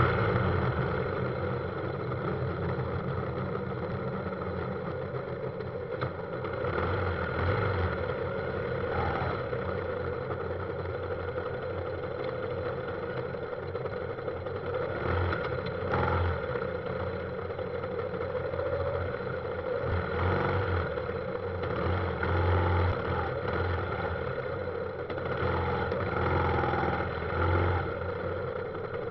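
Motorbike engine running in slow, stop-and-go traffic, with the noise of other motorbikes and cars close around. It makes a steady drone that swells briefly several times.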